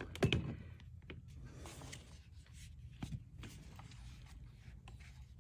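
Stroller rear wheel and axle parts being handled and fitted: a few light clicks and knocks, the sharpest just after the start and others about a second and three seconds in, with soft rubbing between.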